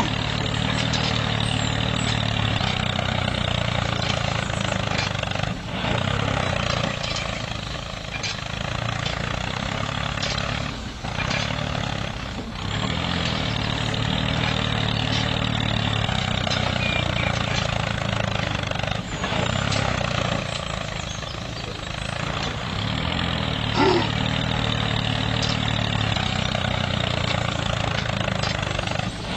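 A small tractor motor running steadily with a low, pulsing drone under a hiss. It dips briefly a few times, with scattered light clicks.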